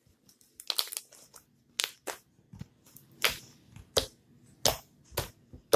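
Fluffy slime being squished and stretched in the hands, giving a string of short, irregular crackling squelches.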